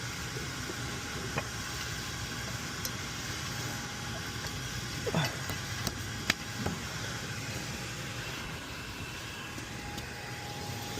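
Steady mechanical hum of running equipment, with a few sharp metal clinks and a clank about five to six and a half seconds in, as bolts and tools are worked on the motor mounting.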